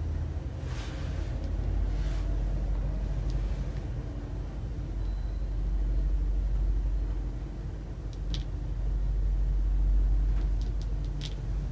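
Hitachi elevator car travelling downward: a steady low rumble of the car in motion, swelling and easing slightly, with a couple of faint clicks about eight and eleven seconds in.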